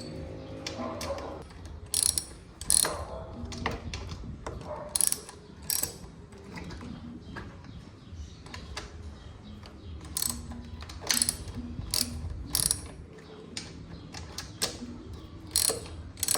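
Hand tools at work on a motorcycle: a wrench and metal parts click and clack at irregular moments as the bolts are fitted and tightened.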